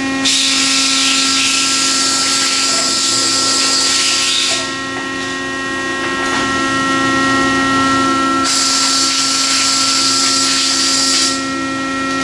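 A hybrid CNC tube bender running a bend cycle on rectangular steel tubing: a steady machine hum from its hydraulic pump, broken by two stretches of loud hissing of a few seconds each, one near the start and one about two-thirds of the way through.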